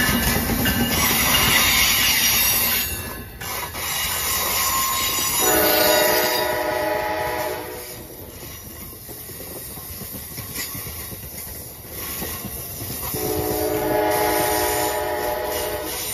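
Train's multi-chime air horn sounding two long blasts, the first about five seconds in and the second about eight seconds later, each lasting about two and a half seconds. Between and before them is the running noise of the train on the rails.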